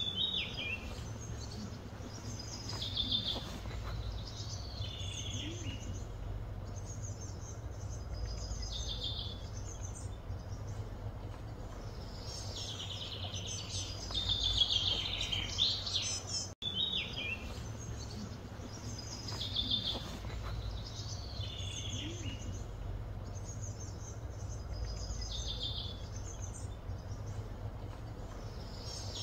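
Wild birds chirping in short repeated phrases over a steady low background hum. The sound drops out for an instant about midway.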